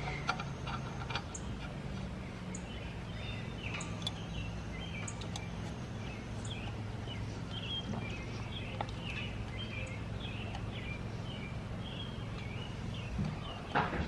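Small birds chirping repeatedly over a steady low hum, with a few light clicks and taps of metal pipe fittings as a pressure gauge is threaded on by hand.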